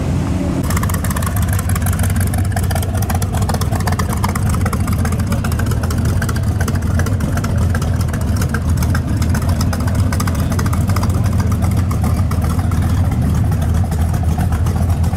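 Hot rod V8 engine idling with a loud exhaust: a steady low rumble made of rapid exhaust pulses.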